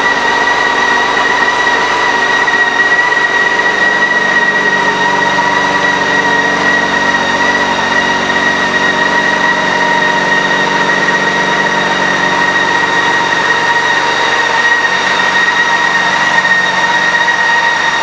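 BMW K 1600 GT's inline-six engine idling steadily, with a steady high whine over the engine noise.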